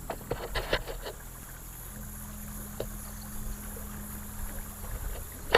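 Boat sounds: a steady low hum with a cluster of clicks in the first second, a faint steady tone from about two seconds in, and one sharp knock near the end.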